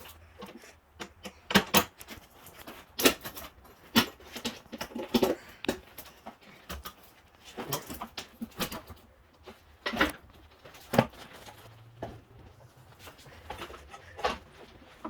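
Irregular sharp knocks and clanks from hand work on a Jeep's metal fender parts and tools, about a dozen hits spread out with short quiet gaps between them.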